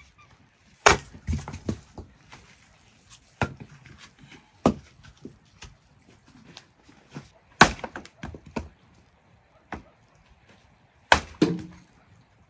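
Axe splitting firewood on a chopping stump: about five sharp wooden strikes a few seconds apart, each followed by a few smaller knocks.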